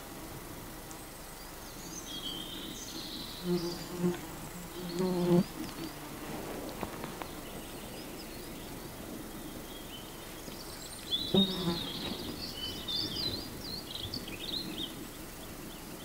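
A flying insect buzzing close past the microphone in three short passes, each with a low steady hum. Birds sing high, warbled phrases in the background.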